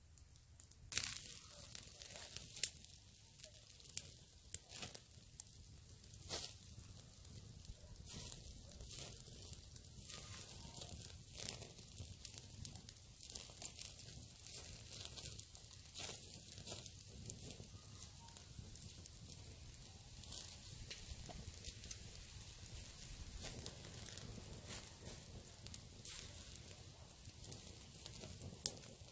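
Small wood fire crackling, with sharp irregular pops throughout, as meat roasts in the flames on a stick.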